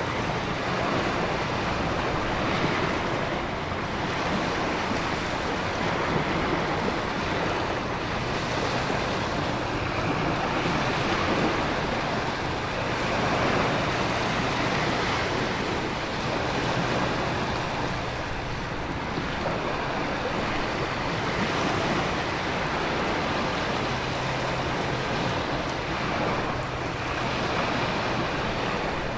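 Storm ambience: heavy rain and wind over crashing ocean waves, a continuous wash of noise that swells and eases every few seconds.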